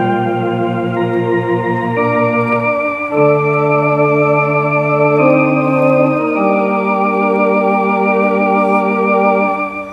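Electronic home organ playing a slow hymn in held chords that change every second or two, with a brief dip as a chord is released near the end.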